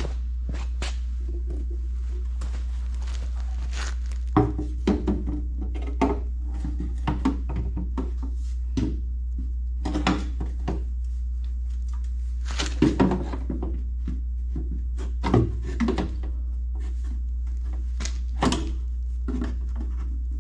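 Irregular metal clanks and knocks as an engine oil pan is offered up and its bolts started by hand from underneath, some hits ringing briefly. A steady low hum runs underneath.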